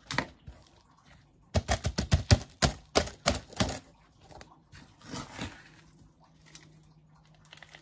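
Quick run of about a dozen sharp knocks and pats over a couple of seconds as potting mix is pressed down around a cactus in a terracotta pot, then a softer rustle of soil and leaves.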